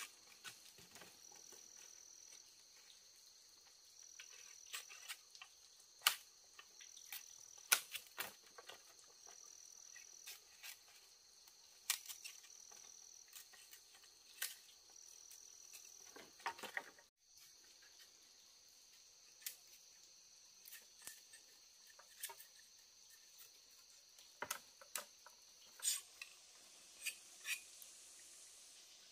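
Insects, likely crickets, trilling steadily, one giving a high call about a second long every two and a half seconds or so, with scattered sharp clicks and taps over the top.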